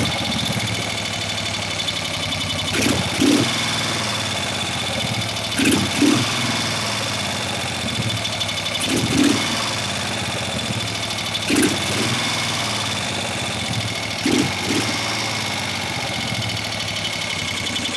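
1971 Moto Guzzi Ambassador's V-twin engine idling during a carburettor idle-mixture adjustment, with a brief louder surge every few seconds.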